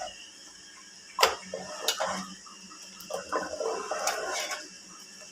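Metal ladle knocking and scraping against a metal cooking pot of milk, with two sharp knocks followed by a stretch of uneven clattering and scraping.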